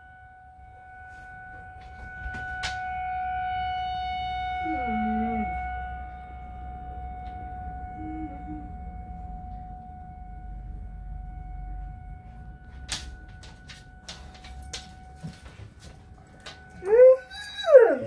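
Tornado warning siren holding one steady tone, swelling and then fading away, while a Great Dane gives a short low whine and, near the end, two loud howls that slide down in pitch.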